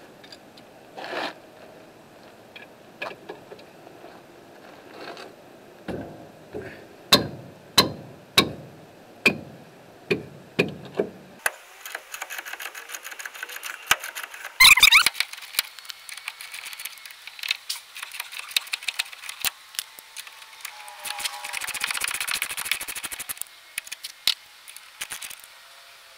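Ratchet wrench with an 11/16-inch socket loosening rusted brake caliper mounting-bracket bolts: a run of sharp clicks about two a second, then quicker, denser ratcheting as the bolts turn out.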